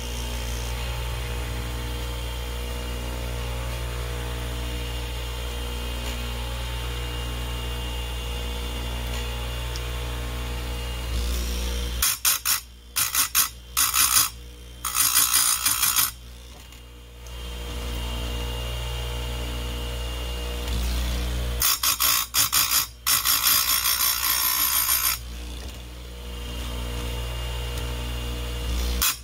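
A bench chainsaw-chain grinder's electric motor runs with a steady hum. Twice, about 12 s in and again about 22 s in, the spinning wheel is brought down on the chain in a quick run of short grinding bursts lasting a few seconds. This is a dull saw chain being sharpened cutter by cutter.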